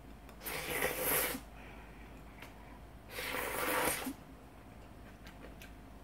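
Two loud slurps of udon noodles, each about a second long and a couple of seconds apart.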